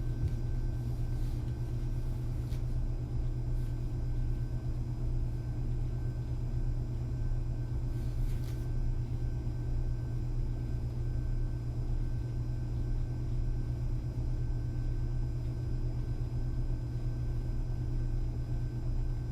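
Quiet room tone: a steady low hum with faint steady higher tones over it. About eight seconds in there is a brief faint rustle of someone moving.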